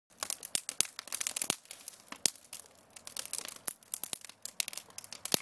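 Fire burning in a metal burn barrel, crackling and popping irregularly with sharp snaps as it throws sparks, easing briefly about halfway through.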